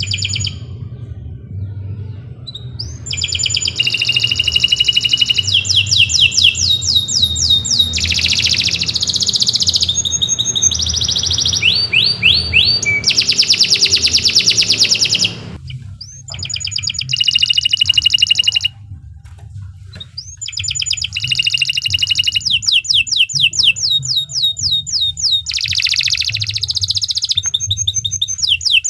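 Domestic canary singing a long song of fast trills and rapidly repeated notes, breaking off briefly twice about halfway through.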